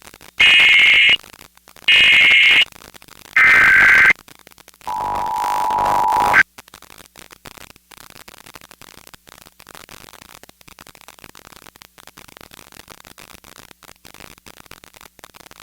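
Emergency Alert System broadcast tones: three short warbling data bursts of the SAME header about a second apart, then the steady attention-signal tone for about a second and a half, cut off abruptly. Faint hiss of dead air follows.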